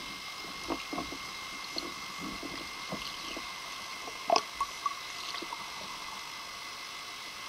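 Underwater ambience recorded by a submerged camera: a steady hiss with a thin steady tone, broken by scattered small pops and knocks, the loudest a little past four seconds in.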